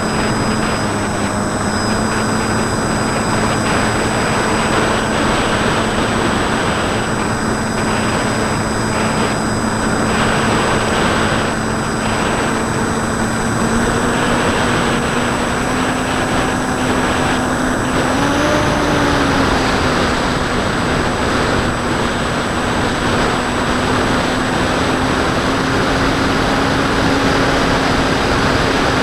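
Electric motor and propeller of a Bixler 2 RC plane in flight, a Turnigy D2826 brushless outrunner turning an 8x5 prop, heard from a camera on the plane: a steady drone under heavy wind rush. The pitch creeps up a little past halfway, with a brief rise and fall in pitch.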